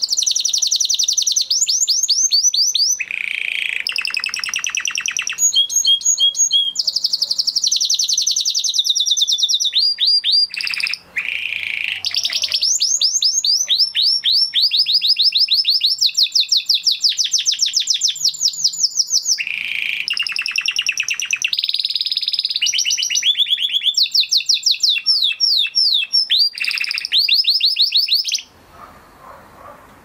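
Crested Spanish Timbrado canary singing a long, loud song made of rapid trills, one phrase of fast repeated notes after another at changing pitches. There is a brief pause about eleven seconds in, and the song stops shortly before the end.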